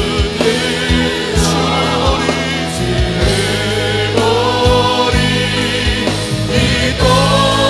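Contemporary worship music: a band with drums and bass playing under sustained choir-like singing.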